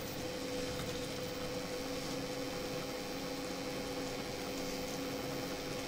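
Steady low hum with two faint steady tones under even room noise. Nothing starts or stops.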